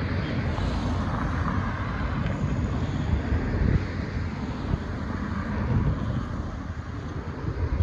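Steady low rumble of a Union Pacific intermodal freight train's diesel locomotives approaching.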